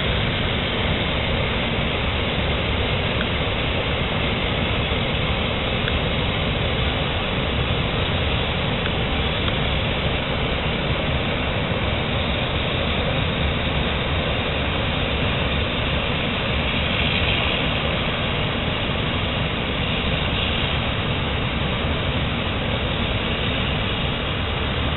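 Several gas cutting torches on a Messer Griesheim Statosec P6500 CNC flame-cutting machine burning through steel plate together, a steady hissing rush with no break.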